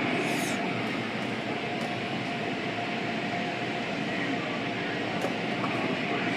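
Automatic car wash heard from inside a car's cabin: spinning brushes scrubbing the bodywork and water spraying against the windows, over a steady machine hum, with a few faint clicks.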